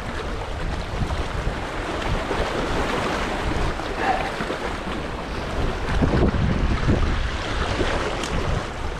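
Small waves washing and splashing over the boulders of a rocky shoreline, with wind rumbling steadily on the microphone.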